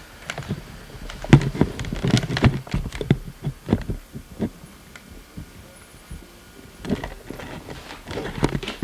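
Miniature schnauzer puppy playing: an irregular run of knocks, thumps and clicks from her paws and play, with a quieter pause past the middle before they start again.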